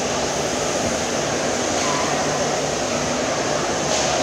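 Steady din of a large, crowded hall: an even hiss with a faint murmur of distant voices underneath.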